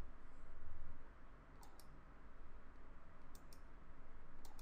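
Computer mouse clicks: two quick pairs of clicks and a single click near the end, over a faint low hum.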